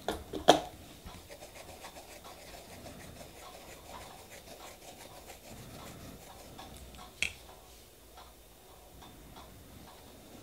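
Small nail-stamping tools being worked by hand: faint scratchy ticking and rubbing, with two sharp clicks near the start and another about seven seconds in.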